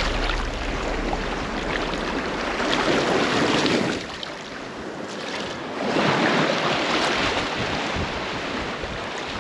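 Shallow surf washing and water sloshing around a wading angler, with two louder surges of wash, one about three seconds in and another about six seconds in.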